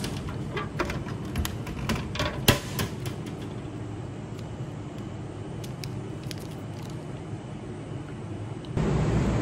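Clicks and knocks from a plastic drink bottle being pulled out through the flap of a drink vending machine's takeout slot, the loudest knock about two and a half seconds in. Near the end a louder steady noise starts abruptly.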